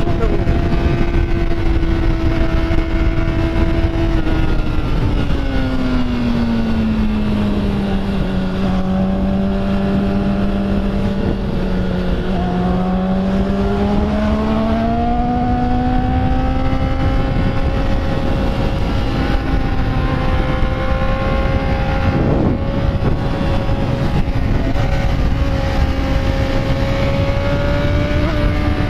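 Motorcycle engine running under way, with wind rumble. The engine pitch holds for the first few seconds, drops as the revs ease off from about four seconds in, then climbs back from about twelve seconds and levels off.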